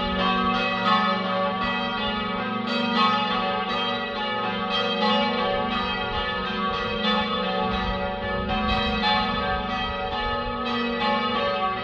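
A ring of three church bells, cast by Taylors of Loughborough in 1925, being change rung: the bells strike one after another in a steady, even rhythm.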